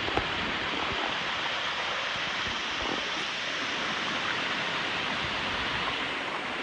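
Waterfall: a steady, even rush of falling water, with a few faint low knocks.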